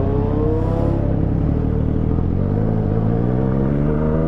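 Motorcycle engine pulling under steady acceleration, its pitch rising slowly, over a constant rush of wind and road noise.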